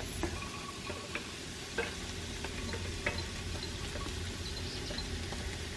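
Onion, garlic and celery sautéing with a low, steady sizzle in an enameled cast-iron pan while diced carrots are tipped in from a glass bowl. A few soft clicks of the vegetables landing can be heard.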